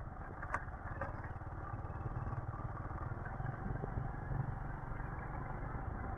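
Motorcycle ridden slowly over a rough, unpaved road: a steady low engine hum with road clatter, and a couple of sharp knocks in the first second.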